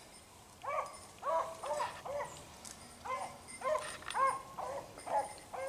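Beagle hounds giving tongue on a rabbit's trail: a run of short, high yelping barks, about two a second, faint in the distance.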